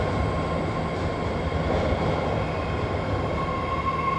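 BART rapid-transit train moving along an underground platform: a steady rumble of wheels and running gear with a high, steady whine over it that grows louder near the end.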